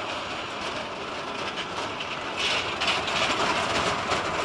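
Jet airliner engines on the runway, a steady, noisy rumble that swells louder about two seconds in with a rough crackle.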